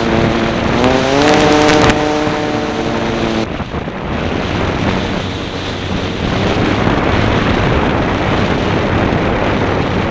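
A radio-controlled model airplane's motor and propeller run at a steady pitch, rise in pitch about a second in, then cut off suddenly about three and a half seconds in. A steady rushing of air over the onboard microphone follows.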